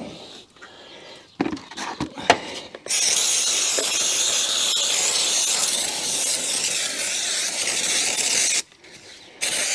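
Aerosol can of brake cleaner spraying: a long steady hiss of nearly six seconds, a brief stop near the end, then spraying again. A few knocks and clicks come before it, as the can and parts are handled.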